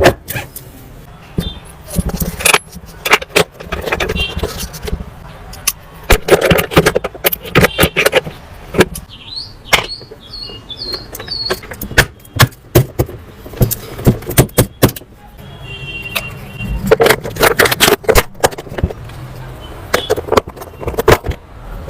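Repeated sharp clicks, knocks and rattles of hard objects being handled, with a short run of high chirps about ten seconds in.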